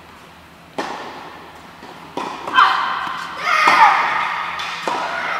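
Tennis ball struck by rackets and bouncing on an indoor hard court: sharp, echoing pops about a second in, just past two seconds and near the end. In the middle come two short high-pitched squeals that are louder than the hits.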